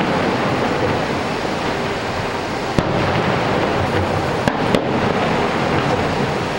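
Fireworks going off: a continuous rumble of distant bursts, with a sharp bang about three seconds in and two more in quick succession about a second and a half later.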